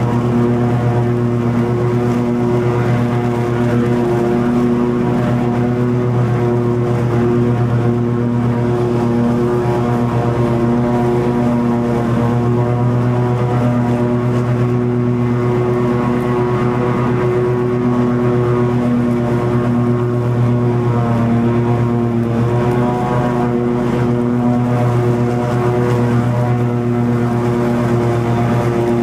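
Toro TimeCutter 50-inch zero-turn mower running steadily with its blades cutting long grass, a loud even engine drone with a slight slow rise and fall.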